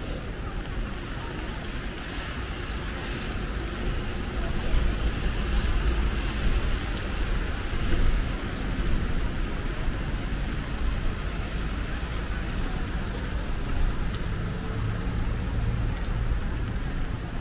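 Rain falling on a city street with road traffic running; the traffic rumble swells between about four and eight seconds in.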